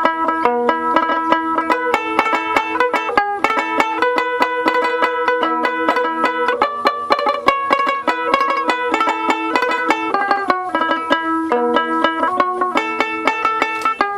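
Background music: a fast, bright plucked-string tune in a banjo style, rapid picked notes without pause.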